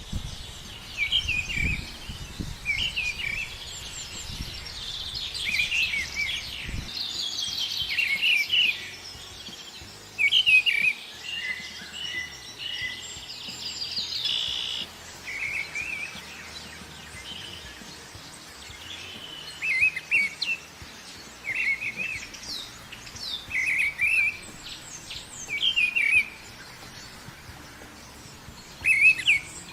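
Birds chirping: a short call phrase repeated every second or two, with denser overlapping chatter in the first half. A low rumble runs under the first several seconds.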